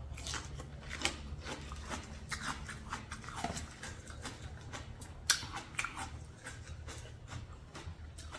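A person chewing and biting a mixed seafood papaya salad close to the microphone: crunching, wet mouth clicks and smacks, with one sharper click about five seconds in. A low steady hum sits underneath.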